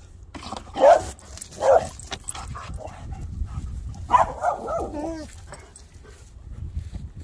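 A dog barking twice in quick succession, then a longer whining yelp that falls in pitch about four seconds in.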